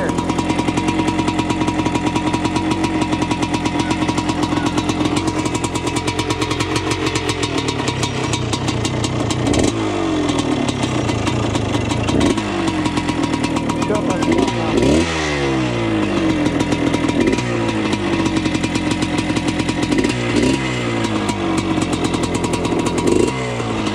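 1979 Yamaha IT 250's two-stroke single-cylinder engine running as the bike is ridden. In the second half it revs up and eases off several times, its pitch rising and falling with each rev.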